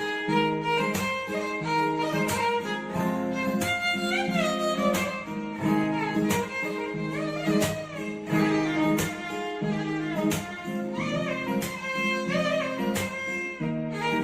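Background music: a melody on violin or strings with sliding notes over a steady plucked or percussive beat.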